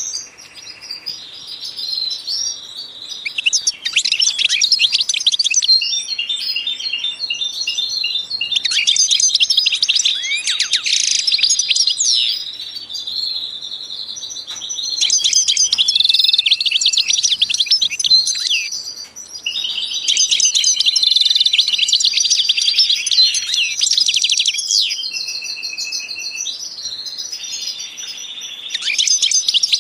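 Many small birds chirping and twittering at once, dense overlapping high calls and trills. They swell into louder spells of a few seconds and drop back in between.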